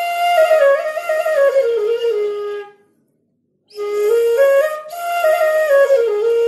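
Solo flute melody played as background music, one line of held notes moving in steps: it falls gradually, breaks off for about a second, then rises and falls again.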